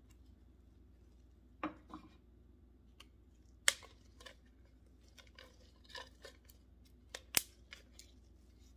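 Scattered clicks, taps and rustles of gloved hands handling a small plant with its soil and setting it into a glazed ceramic planter. The sharpest clicks come a little under four seconds in and again near the end.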